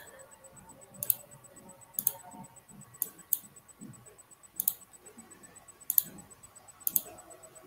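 Clicking at a computer while slides are set up for sharing: about seven light single clicks, irregular and roughly a second apart, over faint room noise.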